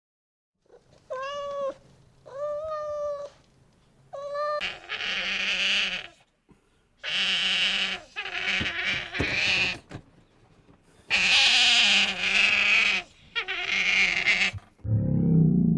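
Animal calls: three short pitched calls, then a run of harsh, hissing calls, and a low growl starting near the end.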